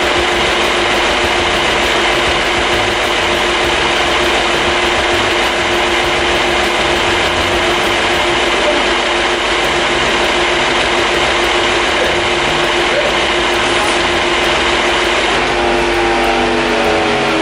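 A machine runs steadily and loudly, a dense whirring noise with a constant hum. Near the end its pitch slides down as it winds down.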